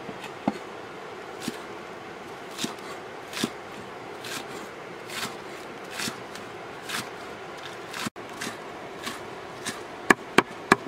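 Cleaver chopping green onions on a wooden chopping block: single cuts about once a second, then a quicker run of louder chops near the end.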